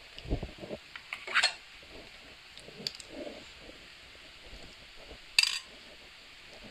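A metal spoon clinking against a stainless steel bowl of chopped cucumber and mayonnaise: a few soft knocks early, a sharp clink about a second and a half in, and a louder, bright clink about five and a half seconds in.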